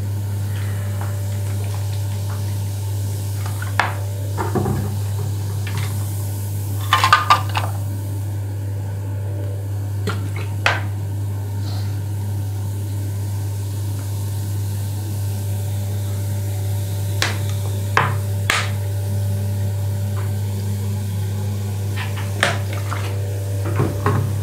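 Scattered clicks and knocks of a plastic Geberit cistern fill valve (ball cock) being handled and cleaned in a ceramic washbasin, over a steady low hum.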